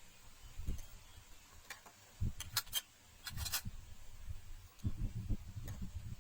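Irregular soft thumps with a few sharp clicks, the busiest stretch from about two to four seconds in, as of objects being handled and set down.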